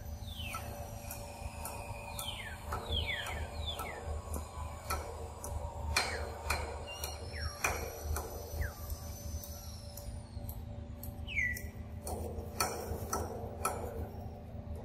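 Birds calling with quick falling whistled notes and long thin high whistles, over a steady low hum. Scattered sharp clicks come from a macaque eating a mango.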